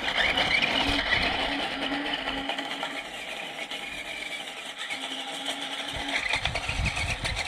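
Small electric drive motors and gearing of a JJRC Q137 8x8 RC skid-steer whining as it drives, with its wheels crunching over gravel. Louder at first, it dips in the middle and builds again near the end.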